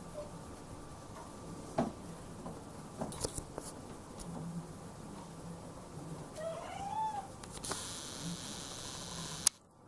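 A cat gives one short, squeaky meow that rises and then falls in pitch, about two thirds of the way in, over faint low purring. A few scattered clicks, and a sharp click near the end.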